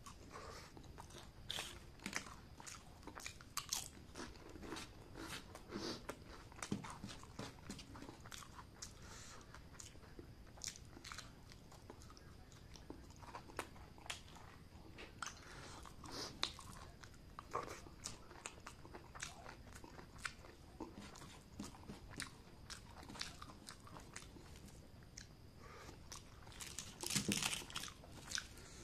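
Close-up eating sounds: a person chewing and crunching mouthfuls of rice and crisp fried crackers, with many small crackles and lip smacks and a louder run of crunching near the end.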